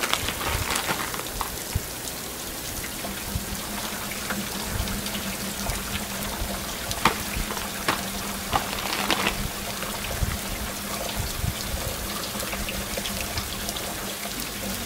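Steady hiss of rain, with a few short crinkles of plastic instant-noodle packets being handled around the middle.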